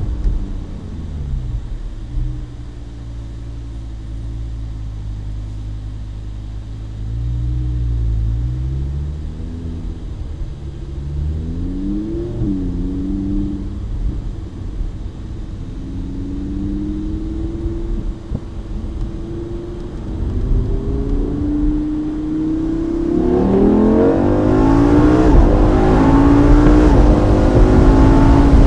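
2016 Lamborghini Huracán Spyder's V10 engine, heard from the open cockpit with the roof down: it runs at low revs for most of the stretch, rises briefly about twelve seconds in, then, about three-quarters of the way through, the car accelerates hard and the engine note climbs steeply and gets much louder.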